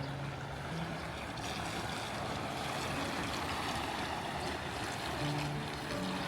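Steady rush of flowing water from a small stream.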